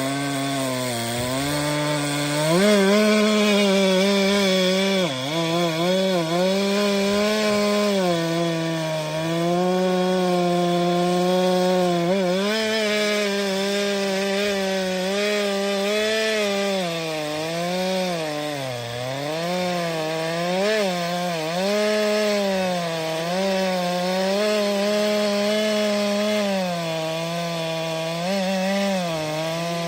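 STIHL MS 462 C-M two-stroke chainsaw at high revs cutting firewood. The engine note sags and recovers again and again as the chain loads up in the wood, after revving up about two and a half seconds in.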